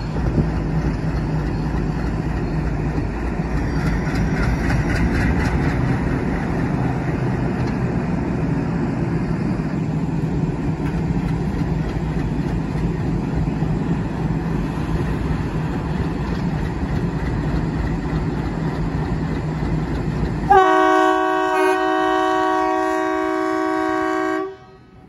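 ALCO WDM3D diesel locomotive's engine running steadily while stationary, with a deep chugging rumble. About 20 seconds in, the locomotive's air horn sounds one long blast of about four seconds, then cuts off sharply.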